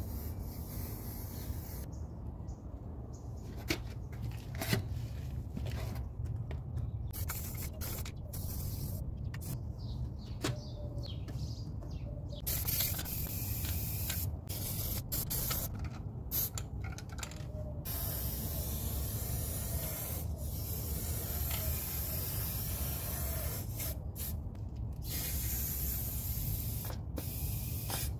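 Aerosol spray-paint can hissing in repeated on-off bursts, some brief and some lasting several seconds, with short gaps between, as paint is sprayed onto stone. A steady low rumble sits underneath.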